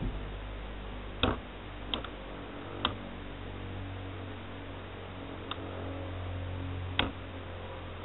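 Two Beyblade spinning tops, one a Duo Cancer 230TB, whirring steadily in a plastic stadium, their metal wheels clacking together five times in sharp hits. The loudest hits come about a second in and near the end.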